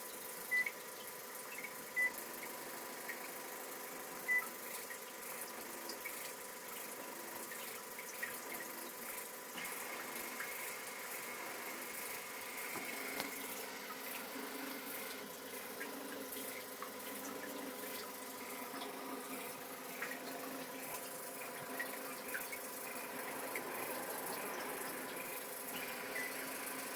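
Panasonic DL-WH20 warm-water bidet seat washing in its moving-nozzle 'move' mode: water spraying with a steady motor hum and a few sharp clicks in the first few seconds. This is the move-function noise that the owner takes for abnormal.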